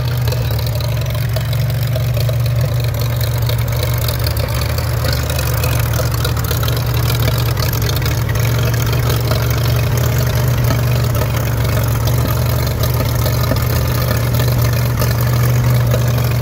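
1944 Farmall A tractor's four-cylinder engine running steadily as the tractor drives across grass, with no revving or change in pace.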